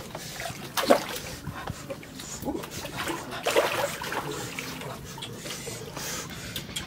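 Shallow stream water trickling and splashing as hands and feet move through it, with a few short voice sounds.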